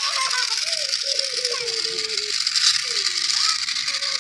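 Small electric motor and plastic gearbox of a toy RC tank running, a steady rattling whir.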